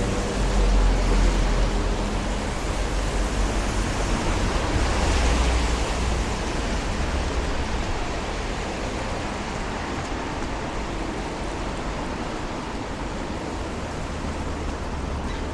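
Steady hiss of car tyres on a rain-soaked road as traffic drives past, with a heavier low rumble in the first half that eases off later.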